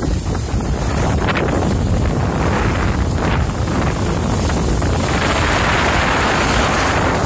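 Steady wind rushing over the microphone of a skier moving downhill, mixed with the hiss of skis sliding on snow. The rushing grows stronger in the second half.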